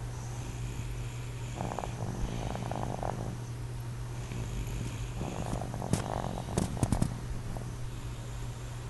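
A sleeping person snoring: two rattling snores a few seconds apart, the second ending in a few sharp clicks.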